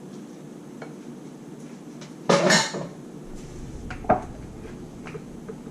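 Pan and utensils clattering and scraping as stir-fried pasta is served onto a plate, loudest about two and a half seconds in, with a shorter clink about four seconds in.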